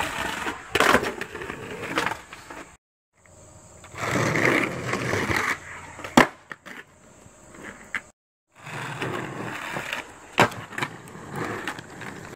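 Skateboard wheels rolling on concrete, with a few sharp clacks of the board striking the ground as tricks are tried. The sound drops out twice for a moment between clips.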